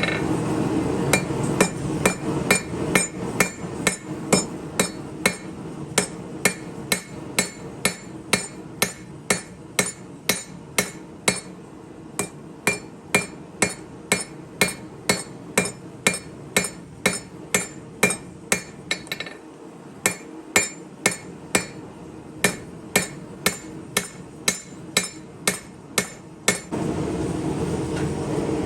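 Hammer blows ringing on a knife blade over an anvil while forging a chef knife, a steady run of about two strikes a second with one short pause about two-thirds of the way through. A steady low rushing noise is heard at the start and comes back near the end.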